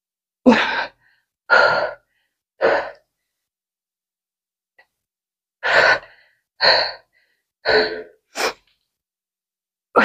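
A person's hard, gasping breaths from exertion during exercise: three short breaths about a second apart, a pause of about two and a half seconds, then four more in quicker succession.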